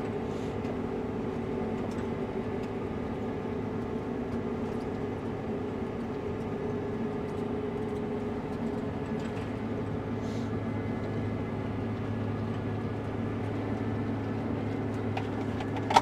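Combine harvester's diesel engine running steadily while the machine drives, heard inside the cab as an even, humming drone with a few faint clicks. The separator and header are not yet engaged.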